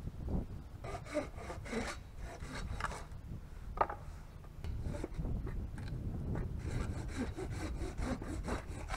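Hand saw cutting a piece of wood held in a wooden sawbuck, in steady back-and-forth strokes. There are two runs of sawing with a pause of about two seconds between them, over a low rumble of wind on the microphone.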